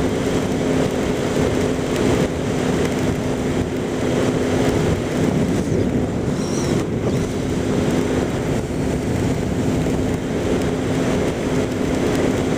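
Motorcycle riding at a steady cruise on a wet road, its engine humming under a constant rush of wind and road noise over the microphone.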